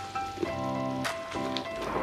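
Background music: a light melody of short, repeated notes, with a few sharp clicks over it.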